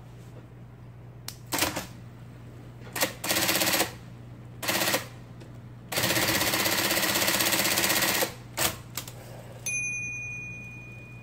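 IBM Selectric ball typewriter with a Korean-English type element being test-typed after repair: short bursts of rapid-fire strikes, the longest a steady run of about two seconds. Near the end its bell dings once and rings out.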